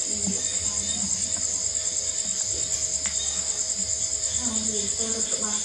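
Crickets chirring at night: a steady, high-pitched, evenly pulsing drone.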